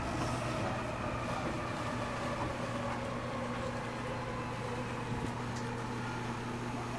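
Steady running noise inside a moving passenger train carriage, with a low, even motor hum under it.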